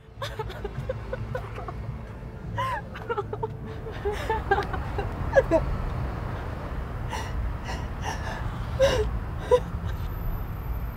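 A woman sobbing: short whimpering cries and gasping, wheezy breaths, over a steady low rumble.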